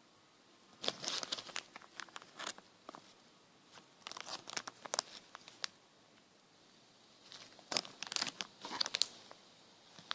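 Close handling noise as small squishy toys are picked up and turned over: crinkling and sharp crackling clicks in three spells of a second or two each, with quiet gaps between.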